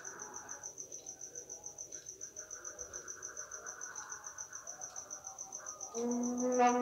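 Crickets chirping in a rapid, even pulse. About six seconds in, a man's voice begins chanting the pre-dawn tarhim.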